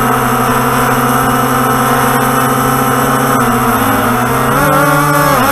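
Walkera Tali H500 hexacopter's electric motors and propellers whirring at a steady pitch. In the last second and a half the pitch bends down and back up a couple of times as the motors change speed.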